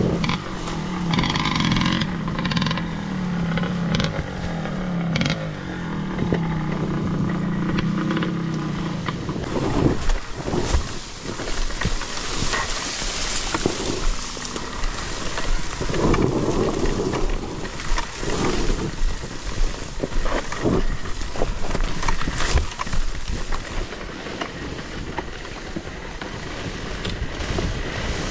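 Enduro dirt bike engine running at low, slightly wavering revs. After about nine seconds it gives way to irregular knocks and rattles over rough ground.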